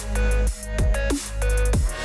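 Background electronic dance music with heavy bass and repeated falling synth sweeps about twice a second.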